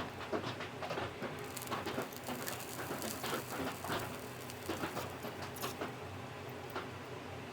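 Irregular small clicks and scratching of hand tools working on a circuit board, such as scraping and picking corrosion off around the micro USB port area.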